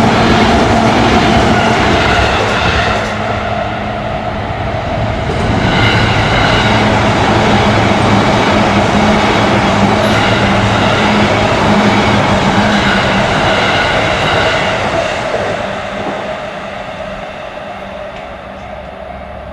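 Train running past, a loud steady rumble with a steady hum through it, dying away over the last few seconds.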